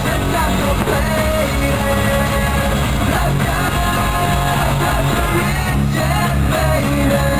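Pop-rock song with a singing voice.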